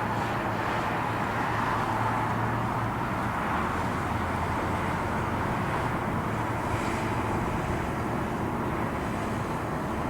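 Steady distant drone of an aircraft's engines heard outdoors, an even rushing sound that holds its level throughout.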